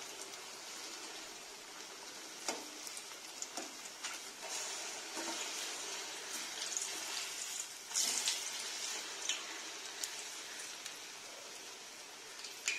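Batter-coated sukhiyan balls deep-frying in hot oil in a steel kadai: a steady sizzle. A few sharp clicks and scrapes come from a slotted metal spoon against the pan as the balls are turned, the clearest about two and a half seconds and eight seconds in.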